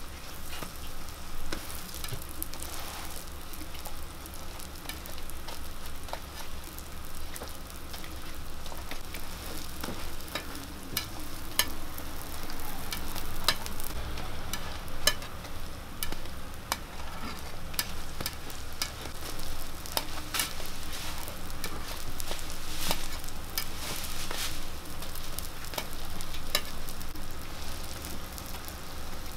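Sweet-pumpkin hotteok sizzling on an oiled flat griddle, a steady frying hiss. From about a third of the way in, it is broken by frequent sharp clicks and taps of a stainless-steel hotteok press and metal tongs against the griddle.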